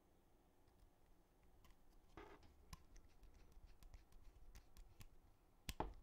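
Faint, sparse clicks and a brief scrape from small keyboard parts being handled while screw-in stabilizers are fitted to a numpad with a small screwdriver, with a sharper click near the end.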